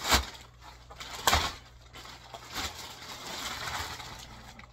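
Clear plastic bag crinkling and rustling as it is pulled down off a subwoofer cabinet, with two louder crackles in the first second and a half, then a softer, steadier rustle.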